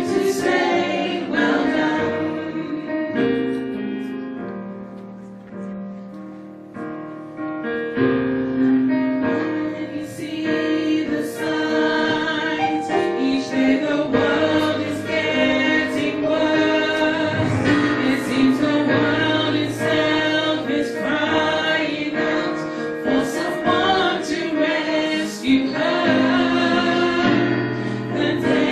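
Church congregation singing a gospel hymn together. The chorus ends in a long note that fades away, then the next verse starts about eight seconds in.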